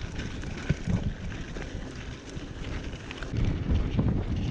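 Wind rushing over the camera microphone as a mountain bike rides fast down a gravel track, with tyres rolling on the gravel and small clicks and rattles from the bike. The noise grows louder about three seconds in.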